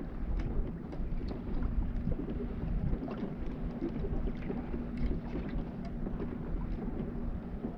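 Wind buffeting the microphone and water lapping against a fishing kayak's hull, a steady rumble with scattered small ticks and splashes.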